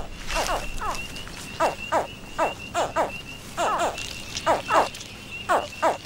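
American alligator hatchlings calling from the nest: about a dozen short, high chirps that each drop quickly in pitch, often coming in pairs. These are the hatching calls that summon the mother to dig them out.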